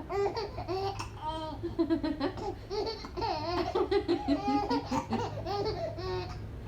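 A baby about four months old laughing in a long string of short, high-pitched bursts while she has the hiccups.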